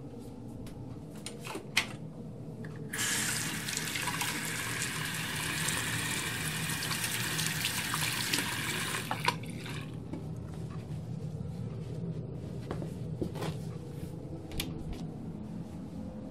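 Water running from a tap into a sink for about six seconds, turned on abruptly and then shut off, with a sharp click just before it starts and another as it stops. A few small clicks follow over a steady low hum.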